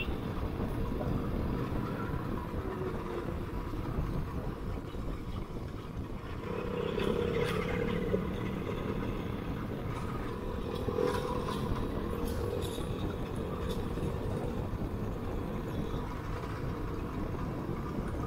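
Royal Enfield Classic 500's single-cylinder engine running steadily through an aftermarket exhaust while the bike is ridden.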